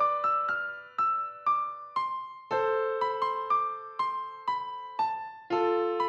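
Background music: a gentle piano-like keyboard melody of struck, fading notes, about two to four a second, with fuller chords about two and a half seconds in and again near the end.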